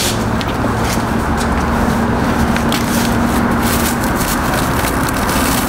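Plastic wrapping crinkling and rustling as parts are pulled about inside a wooden shipping crate, over a steady mechanical hum.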